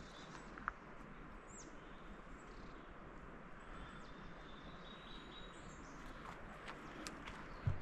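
Small birds chirping and calling over a faint steady rushing background, with a single footstep thud near the end.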